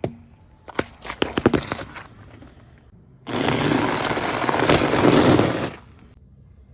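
Brittle objects cracking and crunching as they are crushed under a car tyre: a quick run of sharp snaps about a second in, then a loud, dense crackle lasting a couple of seconds that stops abruptly.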